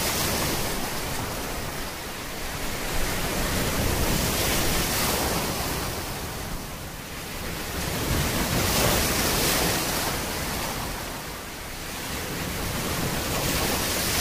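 A steady rushing noise like ocean surf, swelling and ebbing about every four to five seconds.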